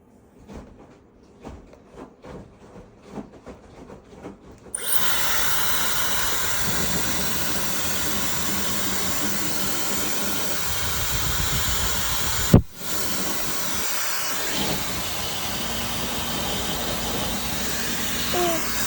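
Hair dryer switched on about five seconds in and running with a steady loud blowing hiss. A sharp click about twelve seconds in briefly cuts it, then it runs on.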